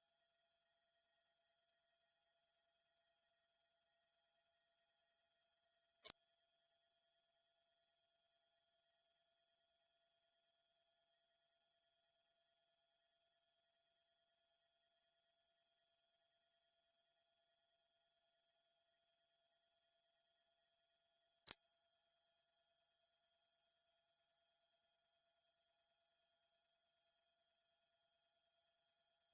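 Dog whistle sound effect: a single steady, very high-pitched and loud tone that holds one pitch throughout, with two brief clicks, about 6 and 21 seconds in.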